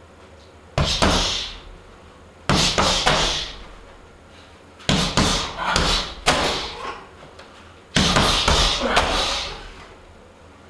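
Strikes landing on a hanging heavy bag: sharp thuds in quick combinations of two or three hits, five combinations with pauses between them, each trailing off in a brief rattle and echo.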